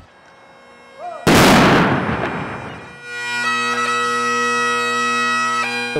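A rifle volley from a ceremonial honor guard: one loud crack a little over a second in, echoing away over about a second and a half. From about three seconds in, a Great Highland bagpipe starts up, its steady drones under the chanter's melody notes.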